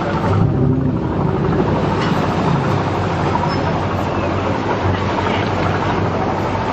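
Engine of a small passenger ferry boat running steadily close by, a low even hum under a wash of broad noise.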